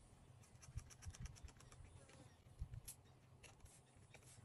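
Near silence, with faint scattered clicks and a few soft low thumps.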